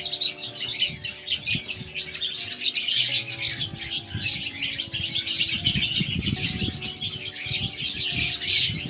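Many small parrots in an aviary chirping and chattering continuously, a dense overlapping chorus of high chirps. A few low knocks come near the end.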